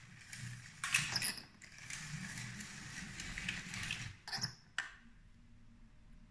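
Lego 12V train running on its plastic track: a rattling rush of wheels over the rails, then two sharp clicks a little after four seconds, and a low steady hum to finish.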